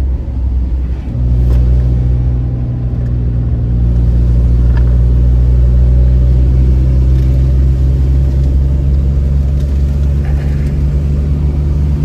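Car engine and road noise heard from inside the moving car: a loud, steady low drone, dipping briefly about a second in, then holding steady.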